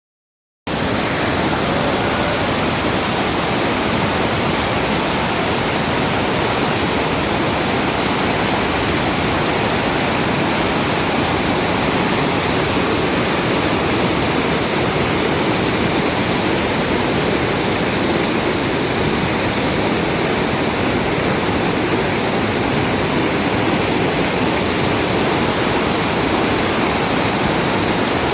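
Waterfall: the steady, loud rush of falling water, starting about half a second in and holding even throughout.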